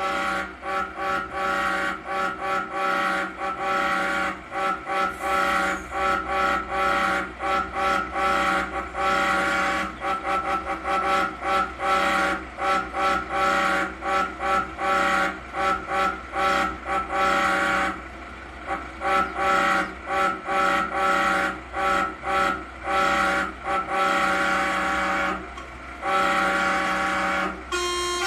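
A truck horn sounding a fast run of short honks mixed with longer held blasts, mostly on one steady chord, tapping out a tune's rhythm. A different, lower note comes in near the end.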